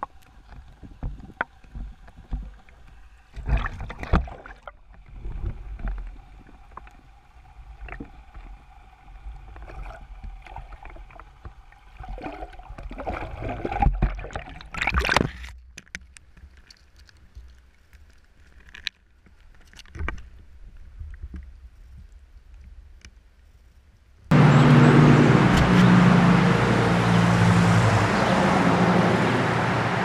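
Underwater camera recording: muffled knocks, bumps and water sounds as the housing is moved about, louder around 4 and 15 seconds in. About 24 seconds in, a loud, steady rushing noise starts abruptly.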